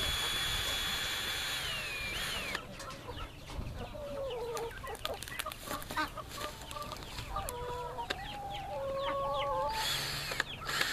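Cordless drill backing screws out of a wooden concrete form: a steady high motor whine that winds down and stops about two seconds in, and a short run of the drill again near the end. In between, hens cluck for several seconds.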